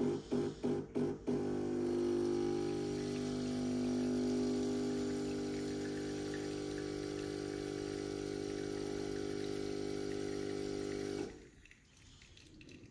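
Winci EM3102 espresso machine brewing a one-cup shot through roasted brown rice in the portafilter. Its pump pulses in short bursts about three times a second, then runs with a steady hum and cuts off suddenly near the end, leaving only faint dripping.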